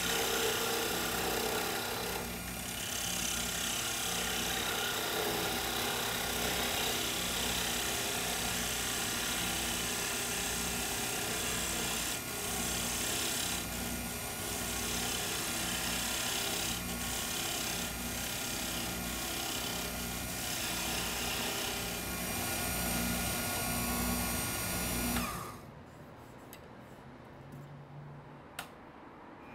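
Wood lathe running while a hand-held turning tool cuts a sugar maple pen blank: a steady motor hum with a scraping, shaving noise. The sound stops abruptly near the end, leaving quiet room sound and a single click.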